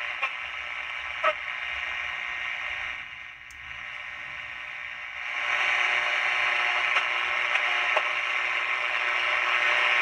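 Mitsubishi pocket radio hissing with static between stations as its tuning thumbwheel is turned, with a few small clicks from the wheel. The static fades away about three seconds in and comes back louder about two seconds later.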